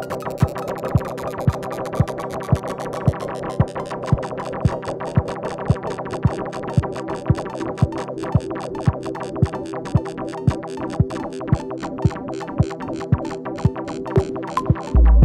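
Electronic music played live on the Kulbuto, a custom tabletop instrument that generates sound from moving graphic elements. A steady kick drum beats about twice a second under held synthesizer tones, ticks join in after a few seconds, and a heavy bass enters at the very end.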